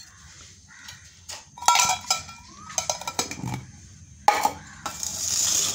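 Small stainless steel tiffin boxes and lids clinking and knocking against each other and the steel pots, several clinks with the sharpest about four seconds in, then a short scraping hiss near the end.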